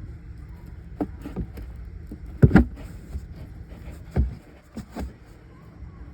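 A handful of short, sharp knocks and clicks, the loudest about two and a half seconds in, from handling the unhooked battery ground cable and its terminal hardware. A steady low rumble runs underneath.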